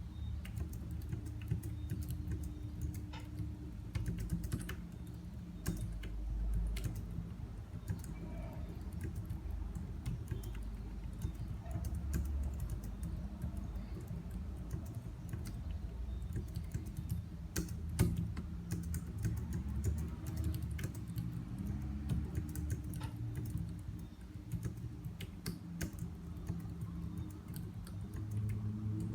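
Logitech K380 keyboard being typed on quickly and continuously, a fast irregular stream of soft key clicks, over a low hum.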